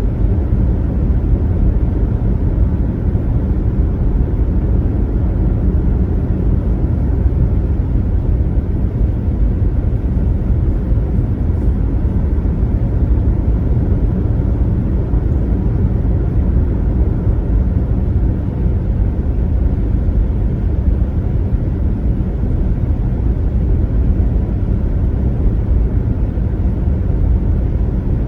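Steady low rumble of a car's tyres and engine cruising at highway speed, unchanging throughout.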